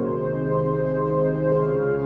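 Slow ambient music of sustained keyboard or synthesizer chords, the chord changing near the start and again near the end.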